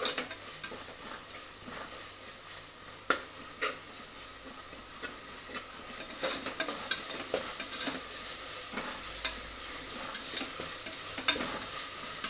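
Crushed ginger-garlic frying in oil with onions and tomatoes in an open pressure cooker, sizzling steadily. A spoon stirs through it, with scattered sharp clicks as it strikes the metal pot.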